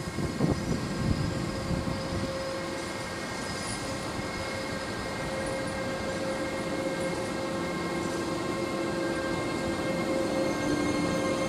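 Loaded freight train of open coal wagons rolling slowly past, with a few knocks in the first second or so, then a steady squeal of the wagon brakes and wheels that slowly grows louder as the train slows to stop at a signal.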